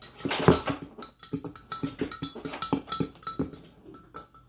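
A metal fork clinking against the inside of a glass Pyrex measuring cup as eggs and milk are whisked: quick ringing clinks, about three a second.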